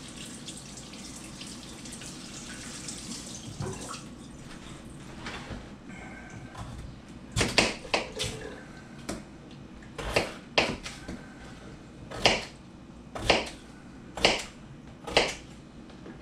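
Kitchen tap running briefly over the sink, then a knife cutting through a raw potato onto a plastic cutting board: a series of sharp chops, roughly one a second.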